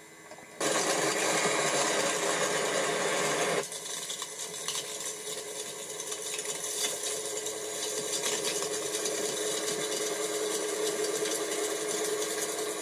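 Mechanical running noise of a railroad rotary snowplow train at work in deep snow, heard as a recording played back off a television. A louder stretch starts suddenly under a second in and cuts off about three and a half seconds in, then the noise carries on steadily.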